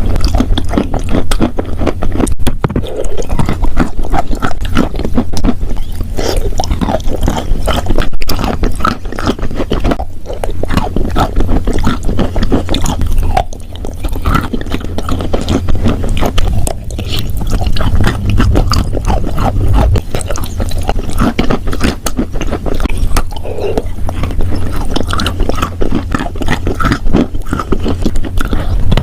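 Chalk and clay being crunched and scraped close to the microphone: a loud, dense, continuous crackling of small crumbling clicks, easing briefly about halfway through.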